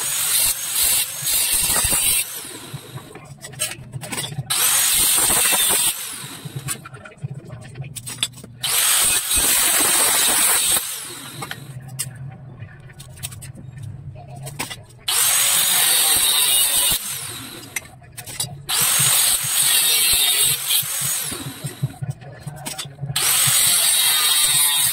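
Handheld angle grinder cutting steel tubing in short runs of about two seconds, six times, each starting and stopping with a rising and falling whine, with quieter handling between cuts.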